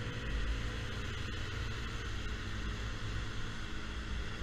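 Yamaha Zuma 50cc scooter engine running steadily, with a low rumble of wind on the microphone.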